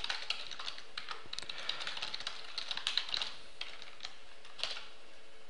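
Typing on a computer keyboard: a quick run of keystrokes for about three seconds, then a few single key presses.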